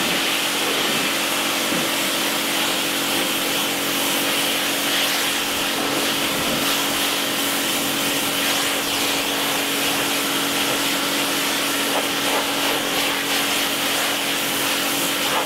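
A pressure washer running steadily as its water jet rinses a boat's hull: a constant hiss of spray over the steady hum of the washer's motor and pump.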